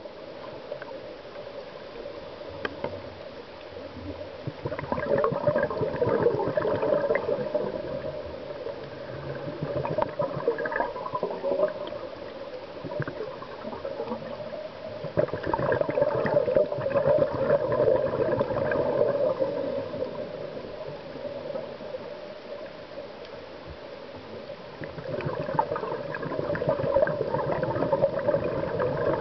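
Scuba diver's regulator exhaust heard underwater: long bubbling, crackling exhalations of a few seconds each, roughly every ten seconds, with a steady water hiss between breaths.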